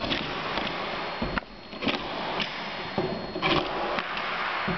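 Staples being driven into the sides of a cardboard box: a series of sharp clicks, a little under two a second, over steady background noise.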